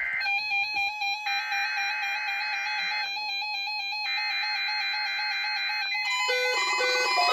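Music: sustained electronic tones with alternating higher chords, and a new melody of short alternating notes coming in about six seconds in.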